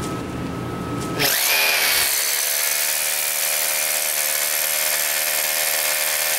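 Power drill with a long masonry bit boring into a boulder of copper-nickel ore. About a second in, the drill speeds up sharply to full speed and then runs with a steady whine as the bit grinds into the rock.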